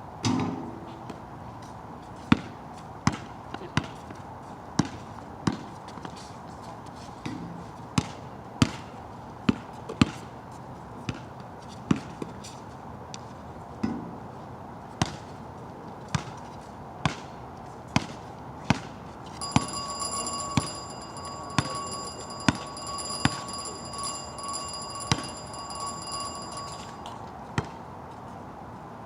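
Basketball being dribbled on an outdoor court, sharp single bounces at about one a second, unevenly spaced. For several seconds past the middle, a high steady tone sounds alongside them.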